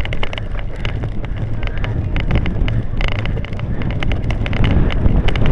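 Wind buffeting the microphone of a camera carried on a cyclocross bike ridden at speed over bumpy grass, with many quick rattles and clicks from the bike jolting over the rough ground.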